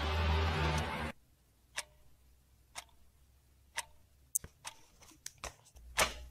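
Background music stops abruptly about a second in. Sharp single clicks follow, about a second apart at first like a clock ticking, then coming faster near the end.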